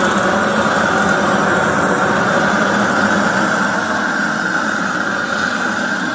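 Volt Storm gas cooking torch burning with a steady, even rushing hiss from its flame, a little quieter from about four seconds in.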